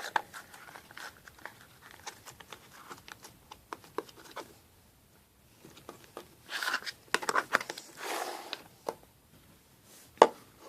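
Hands squeezing and stretching slime, making irregular small clicks and crackling pops, denser about seven to eight seconds in, with one sharp click near the end.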